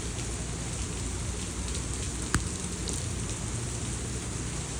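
Rain falling steadily, with a single sharp click about halfway through.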